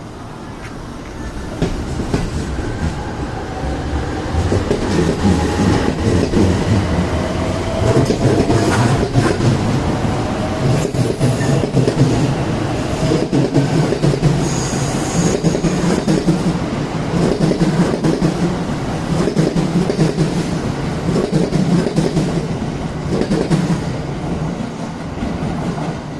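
JR West 683 series electric limited express pulling out of the station and accelerating. The traction motors whine, rising in pitch over the first several seconds, while the wheels clatter over rail joints as the cars roll past.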